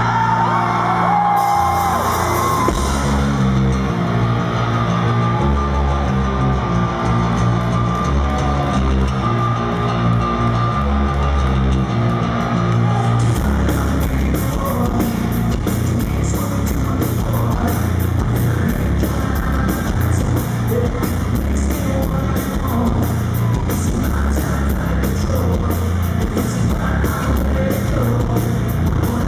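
Rock band playing live through a hall PA: a heavy guitar and bass riff with singing and yelling, the drum kit with cymbals joining about halfway through.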